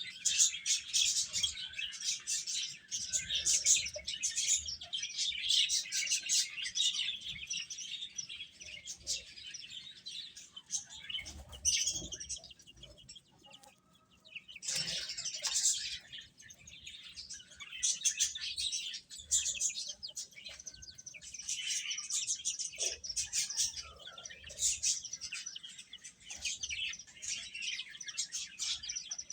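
Baby chickens (chicks) peeping, many high chirps overlapping, with a short lull about halfway through.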